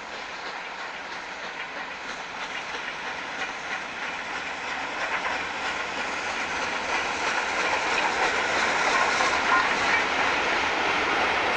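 LNER A3 Pacific steam locomotive No. 4472 Flying Scotsman passing at speed with its train of coaches: a rushing noise of steam and wheels with the clickety-clack of the carriages on the rails. It grows louder over the first two thirds as the train draws level, then stays loud as the carriages roll by.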